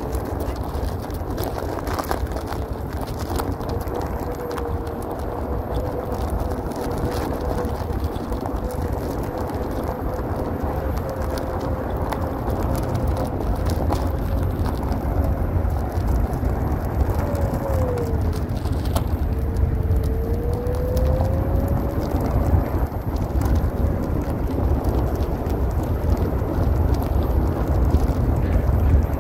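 Floatwheel ADV electric one-wheel board rolling over rough asphalt: a steady low rumble from the fat tyre, with the hub motor's thin whine holding one pitch, dipping and climbing back a little past the middle as the speed changes.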